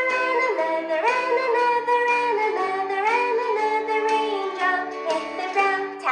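Children's song music: a held, gliding melody line over a steady bass accompaniment.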